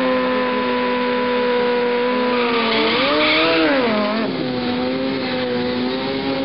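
Drag-racing motorcycle doing a burnout: the engine is held at high, steady revs while the rear tyre spins against the tarmac, with a rise and fall in revs about three seconds in.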